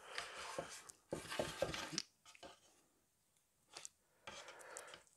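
Quiet rustling and small clicks of a velvet-like carpet piece being rubbed down onto a plastic model car interior tub by hand, pausing about two seconds in and starting again near the end.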